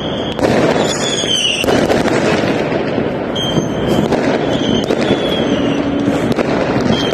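Fireworks and firecrackers going off all around, a dense continuous crackle of many small bangs. A few short high whistles cut through it, some falling slightly in pitch.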